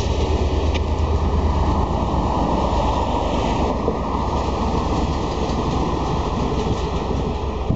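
Diesel locomotive hauling passenger carriages passing close by: a loud, steady low engine rumble over continuous wheel-on-rail noise.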